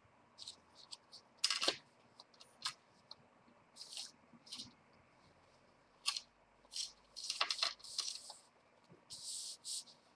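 Paper and card being handled at a craft table: scattered light clicks, taps and short rustles, with a longer rustle near the end.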